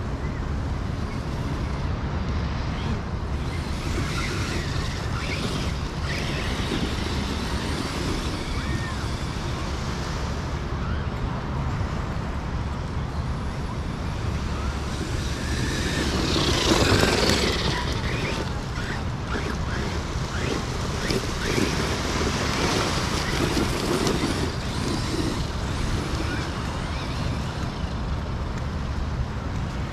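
Upgraded 3S Arrma Granite RC truck driving over beach sand, heard from a camera mounted on it: steady motor and drivetrain noise with wind on the microphone, growing louder for a couple of seconds about halfway through.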